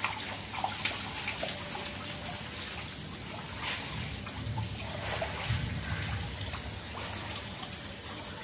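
Bare feet wading and splashing through ankle-deep standing rainwater, with small sloshes and drips over a steady patter of light rain.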